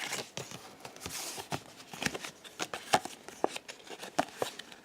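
Trading cards and a sticker being handled out of a booster pack: soft paper rustling and a scatter of small clicks and taps.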